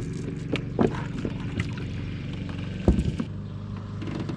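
A steady low motor hum under several sharp knocks and clunks in a small fishing boat, the loudest knock about three seconds in.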